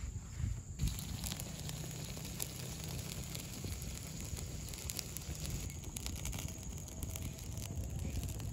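Open wood fire burning under a wok, with scattered small crackles and pops.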